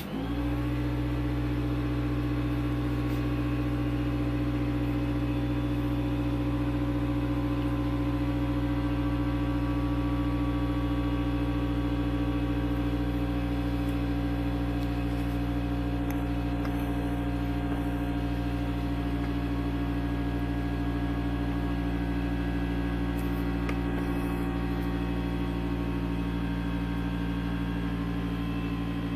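Electric air compressor switching on abruptly, its motor spinning up within about half a second, then running with a steady, even hum.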